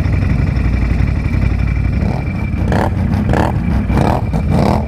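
Can-Am Outlander ATV engine running steadily under load while pushing through deep mud, with a thin high whine over it early on. From about two seconds in, a rhythmic swishing comes about every two-thirds of a second.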